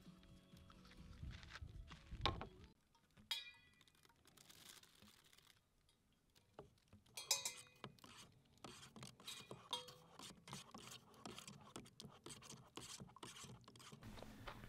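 Faint clinks and taps of cup and utensil while making coffee, with a few sharper clicks, then a plastic spoon stirring coffee and condensed milk in a paper cup, a quick run of small ticks through the second half.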